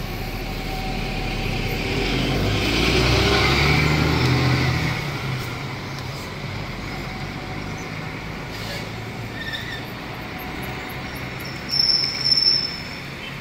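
Weichai WP6.220E50 six-cylinder diesel of a Yutong ZK6876H5Y coach pulling away from standstill: the engine note swells over the first few seconds, then drops off as the coach draws away. Near the end a brief shrill high tone cuts in over the traffic.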